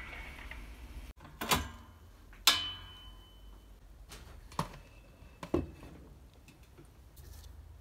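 Several knocks and metallic clinks from a spoked bicycle wheel being handled. The loudest, about two and a half seconds in, rings on with a thin metallic tone for about a second.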